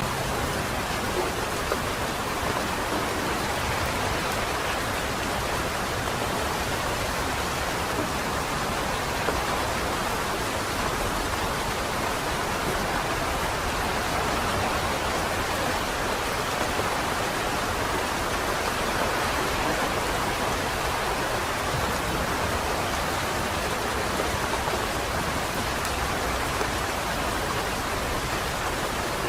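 Light rain falling steadily, an even hiss of drops with the odd sharper drip.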